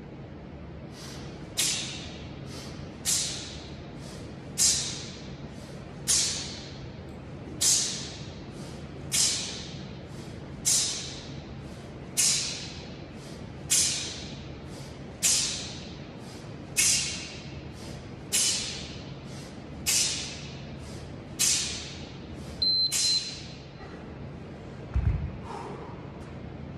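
Sharp hissing exhales from a man doing one-arm kettlebell swings, one on each swing, about every second and a half, each with a quick breath in just before it. Near the end a short interval-timer beep sounds, and then a thud as the kettlebell is set down on the rubber gym floor.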